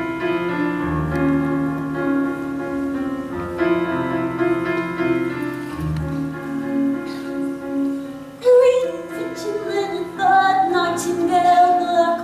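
Piano playing a gentle introduction of held chords, then a female voice enters about eight seconds in, singing the song's opening line in a light classical style over the piano accompaniment.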